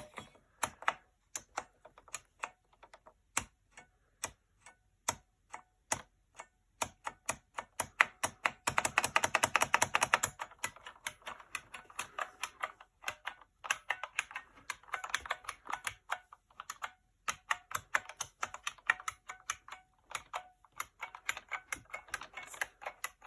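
IBM Model M keyboard's buckling-spring keys clicking under typing. Slow single key presses come first, then a fast run of typing about nine seconds in, followed by further quick bursts of keystrokes.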